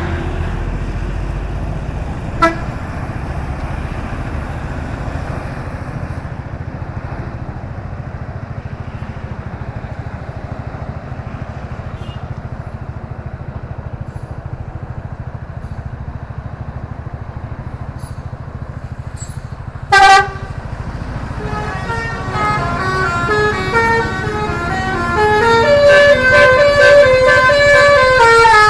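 Bus engine running with a low rumble, a brief horn toot about two seconds in and a loud horn blast at about twenty seconds. From about twenty-one seconds a multi-tone Basuri "telolet" bus horn plays a stepping melody of rising and falling notes, getting louder toward the end.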